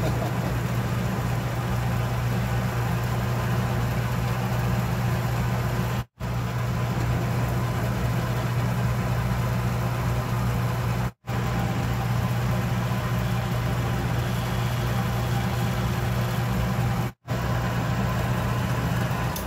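Atlas metal lathe running steadily with a low motor and drive hum while holes are indexed with the milling attachment. The sound drops out abruptly and briefly three times.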